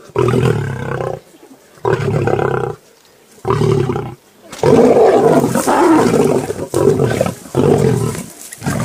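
Lions growling at a shared zebra kill: three short growls of about a second each, then a longer, rougher stretch of growling of about four seconds from the middle onward.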